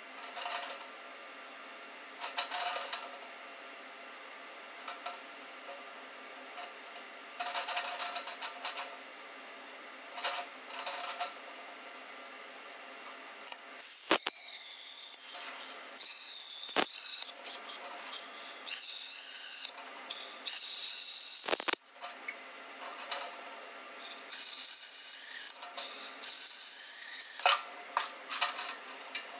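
Soapstone scratching along a steel pipe in short strokes, with light knocks of metal on the steel table. About halfway in, a plasma cutter starts hissing loudly with a wavering high whine as it cuts through the 2-inch schedule 40 steel pipe, running in several long stretches broken by a few sharp clicks.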